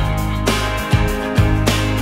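Instrumental music with a steady beat and sustained low bass notes.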